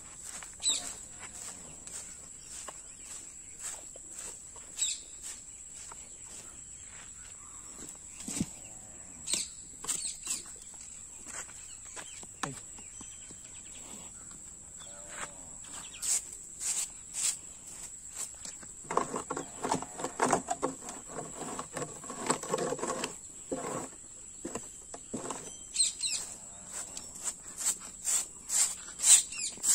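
A short stiff broom sweeping and scraping cow dung across a dirt floor into a pan, in irregular strokes, with a denser stretch of scraping about two-thirds of the way through and a quick run of sharp taps near the end. Flip-flop footsteps scuff between the strokes, over a steady high whine.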